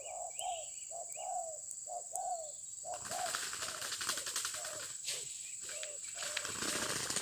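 Spotted doves cooing, a run of short rising-and-falling coo notes about two a second. From about three seconds in, a rustling flutter of wings joins it as a dove flaps on dead oil-palm fronds, stuck on the birdlime spread on them.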